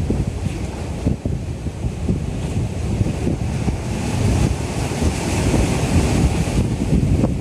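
Strong gusty wind buffeting the microphone with a heavy low rumble, over the sound of rough sea. A rushing hiss swells about halfway through and drops away shortly before the end.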